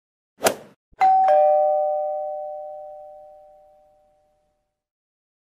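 Intro sound effect: a short sharp hit, then a two-note chime, a higher note followed quickly by a lower one, ringing out and fading over about three seconds.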